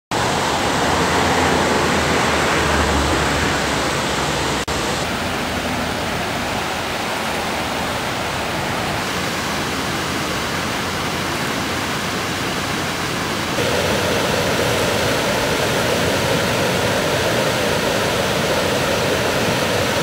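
Steady rushing of flowing water, an even hiss with no distinct events, that changes abruptly in tone and level twice.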